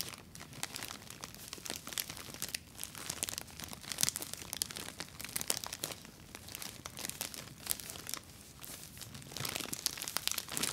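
Plastic wrapping of a pack of Always Sensitive night sanitary pads crinkling as it is handled and rubbed by fingers. The crackles are rapid and dense, growing louder about four seconds in and again near the end.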